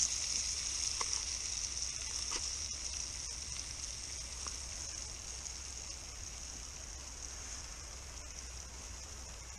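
Eel pieces sizzling in a small pot on a camp stove: a steady high hiss that slowly dies down, with a couple of light taps of a utensil on the pot about one and two seconds in.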